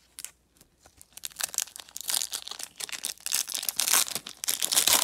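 Plastic wrapper of a 1999 Bowman baseball card pack crinkling and tearing as it is opened, a dense crackle starting about a second in.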